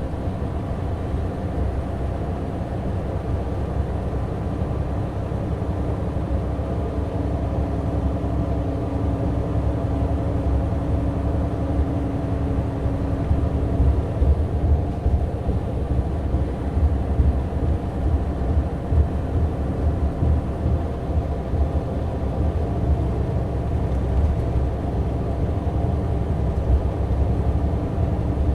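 A Mitsubishi Fuso Aero Ace highway coach cruising on the expressway: a steady diesel engine drone with road noise, growing slightly louder. A faint steady hum sits over it and fades out about halfway through.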